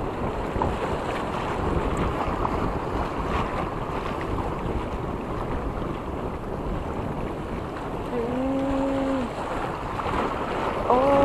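Wind buffeting the microphone over a choppy sea, a steady rushing noise. A short, steady hum with overtones comes about eight seconds in, and again near the end.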